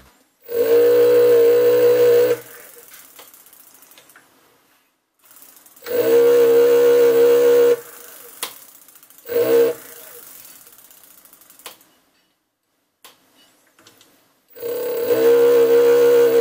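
An electric bike's 36 V 240 W brushless (BLDC) rear hub motor is run up in bursts, four times, the third brief. Each burst is a very loud, strange, steady-pitched drone, and a few light ticks come between the bursts as the wheel turns. The sound is the sign of a faulty Hall sensor in the motor.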